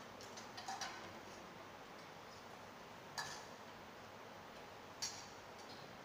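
Faint scattered clinks of spoons against bowls and dishes as food is served into alms bowls: a few light knocks near the start, then two sharper clinks about three and five seconds in, over a steady low hiss.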